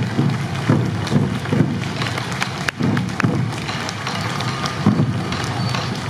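Many waist-slung sansa taiko drums beaten by a dancing troupe, a run of low thumps over a noisy crowd hubbub.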